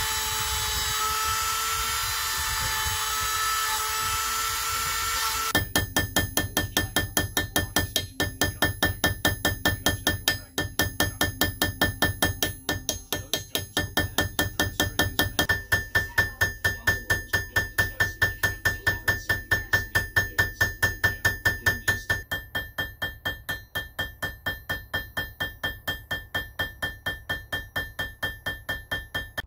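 A small handheld rotary tool runs with a steady high whine, grinding a small metal and leather part; about five seconds in it stops and a hammer starts tapping on metal in a fast, even rhythm of about three to four strikes a second, with a ringing tone under the strikes later on.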